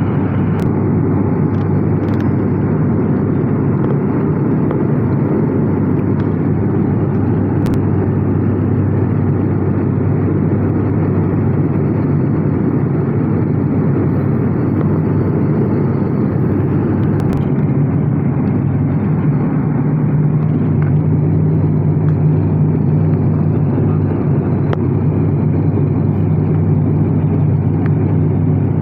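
Steady drone of an ATR 72 turboprop's engines and propellers heard inside the passenger cabin, with a low humming propeller tone that grows stronger about two-thirds of the way through.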